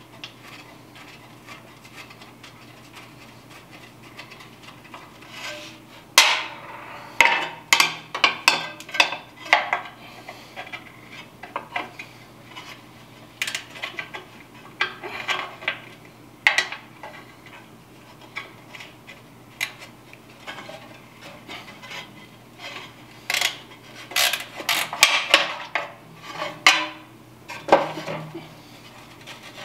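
A hand wrench clinking and scraping against the bolts and metal blower housing of an old oil burner as the bolts are worked loose. Irregular metallic clicks and clatters in short clusters, starting about six seconds in.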